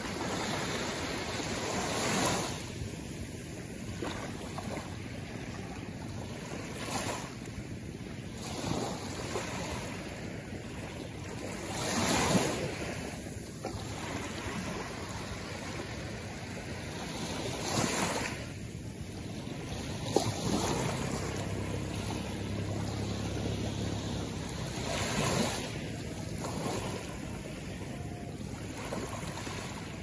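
Small sea waves breaking and washing up a pebble shore, swelling into a rushing surge every few seconds and falling back between. There is a single sharp click about two-thirds of the way through.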